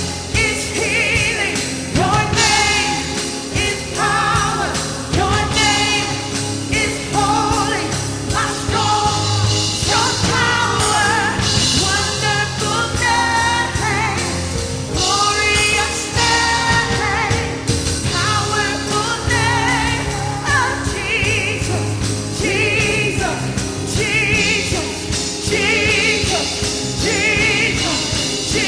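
Live church worship band playing a gospel-pop song, with singers holding sustained, wavering notes over a steady beat and held low notes.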